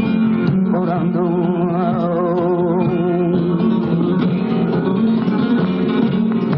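Flamenco cante: a man sings a wavering, ornamented melismatic line over flamenco guitar. The voice drops out about halfway through, and the guitar carries on with plucked notes.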